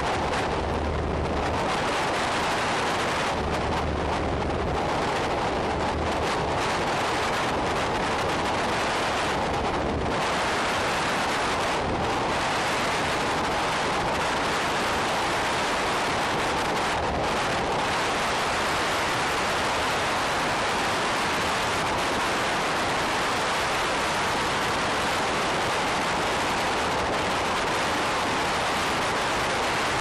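Steady rush of wind noise and engine drone from a Diamond DA20 Katana light aircraft in cruising flight, heard on a GoPro camera. It is an even, unbroken roar with no changes in power.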